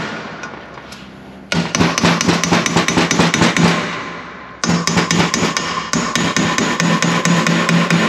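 Small hammer tapping rapidly on metal, about six light strikes a second with a ringing note behind them. The taps come in two runs, broken by a short pause just past the middle.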